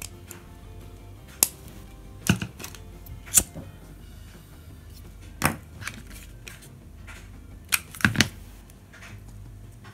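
Several short, sharp clicks and clacks of hands-on crafting work. Scissors snip grosgrain ribbon, a lighter is flicked to heat-seal the ribbon's cut end, and a metal alligator hair clip and tools are handled and set down on a cutting mat.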